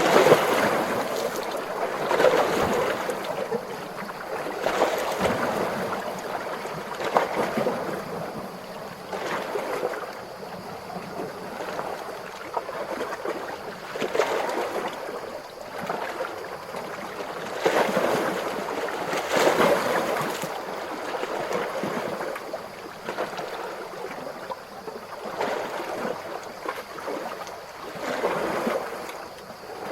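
Small, calm ocean waves lapping and washing, swelling and falling back irregularly every few seconds.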